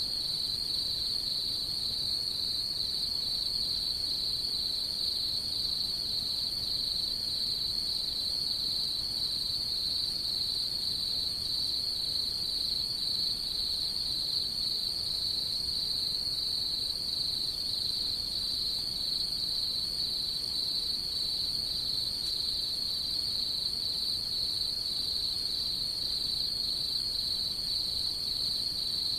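A chorus of night insects trilling steadily, one continuous high trill with a fine, even pulse, over a faint low background hiss.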